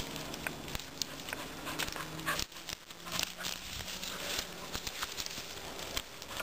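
Irregular snapping and crackling of dry twigs and cut branches underfoot as feet move across a brash-covered forest floor.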